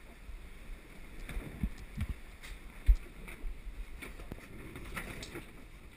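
Wind and sea noise aboard a sailing yacht, buffeting a GoPro's microphone as a low rumble with hiss, broken by several dull thumps, the loudest about three seconds in.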